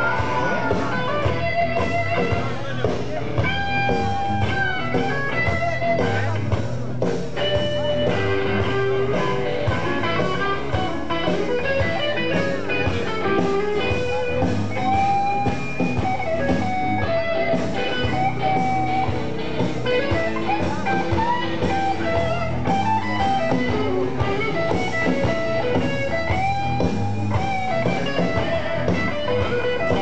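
Live blues band playing an instrumental passage: an electric guitar lead of single held notes that bend and slide in pitch, over bass and drums.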